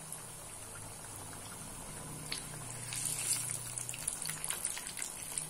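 Diamond-cut lauz, pieces of semolina and flour dough, deep-frying in hot oil in a pan: a steady sizzle with scattered crackles that grow denser about halfway through.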